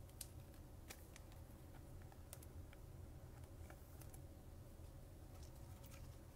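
Near silence with faint, scattered clicks of chrome trading cards being handled and tapped together, over a low steady hum.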